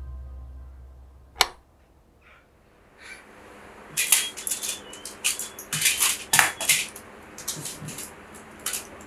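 A foil blister pack of pills being handled and crinkled: a quick run of sharp crackles and clicks, loudest in the middle, with one sharp click about a second and a half in.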